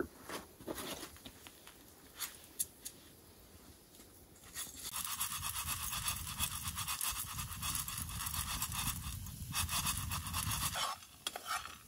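Green coffee beans being shaken and stirred in a tin pan over an open fire, dry beans rattling and scraping on the metal in the early stage of dry-roasting. The steady rattle starts about five seconds in and stops about a second before the end, after only faint scattered clicks.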